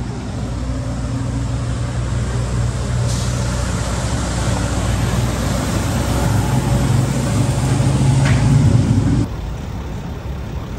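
City street traffic: a steady engine hum from passing vehicles over road noise, growing louder, then cutting off suddenly about nine seconds in to a quieter traffic background.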